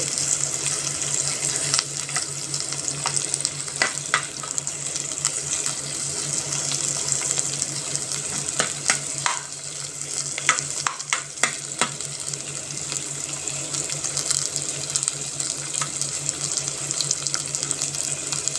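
Sliced onions sizzling in oil in a pan over low heat, a steady hiss with a low hum beneath it. A spatula scrapes and taps against the pan in scattered clicks as they are stirred, most of them about halfway through.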